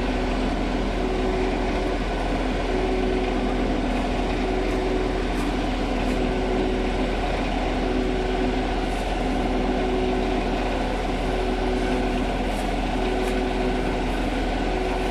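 A heavy truck's engine running steadily at a constant speed, an even hum that does not rise or fall.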